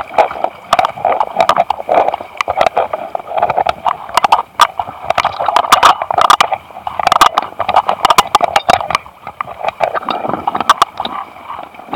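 Water sloshing and gurgling right against the microphone, with many sharp clicks and crackles throughout.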